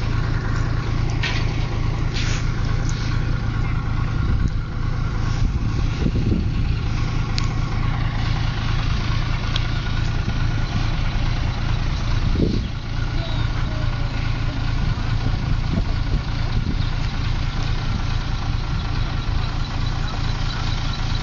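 A large engine running steadily, with voices in the background.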